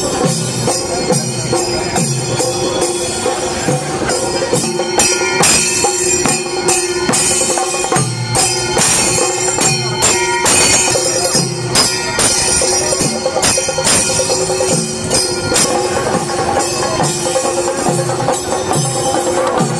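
Kerala chenda melam: chenda drums and elathalam hand cymbals playing a dense, fast rhythm over a steady held tone.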